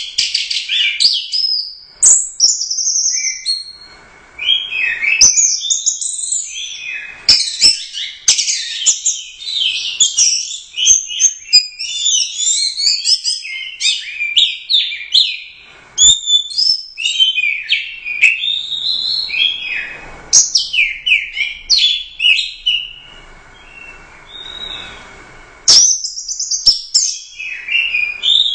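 Orange-headed thrush (anis merah) singing a fast, varied song of high whistled and chattering phrases, delivered in bursts with short pauses between them.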